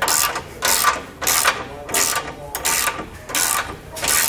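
Hand ratchet with a 19 mm socket clicking in short bursts on each back-swing, about one every two-thirds of a second, as it tightens a bolt down.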